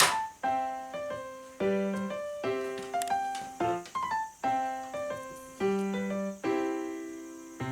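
Background piano music: a light melody of single struck notes, each fading away, over repeated low notes.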